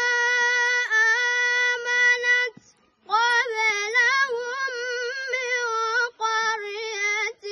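A boy's voice chanting Quran recitation in a high, melodic style. He holds one long steady note for about two and a half seconds, breathes, then moves into a wavering, ornamented phrase.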